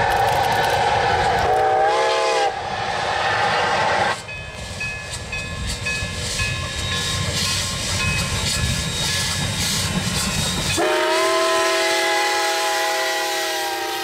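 Two steam locomotives, a 2-8-0 and a 2-8-2, working a train amid heavy hissing steam. A short steam-whistle toot comes about two seconds in. From about eleven seconds a long, steady chime steam-whistle blast sounds.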